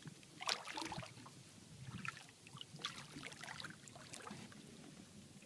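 Faint scattered knocks and splashing of water against a small boat's hull from a hooked alligator thrashing and biting at the boat's side.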